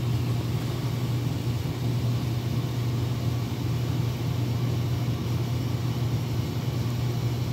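Steady low hum of a ship's machinery, holding the same pitch throughout with no change in level.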